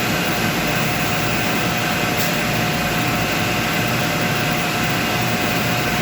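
Steady machinery noise: a constant whirring hum with a few thin steady tones running through it.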